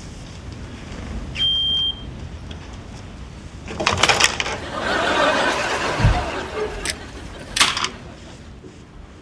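Smoke alarm giving one short high beep about half a second long, followed a couple of seconds later by clattering and rustling with a thump.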